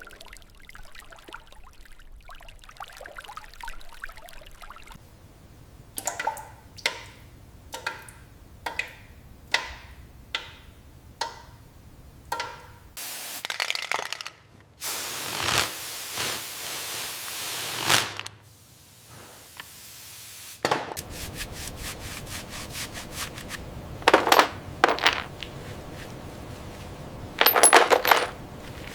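Hand work on motorcycle parts in a workshop. About ten short scraping strokes come in a row, each with a faint metallic ring. Then a loud hiss lasts several seconds, and near the end there is fast ticking with three short loud hissing bursts.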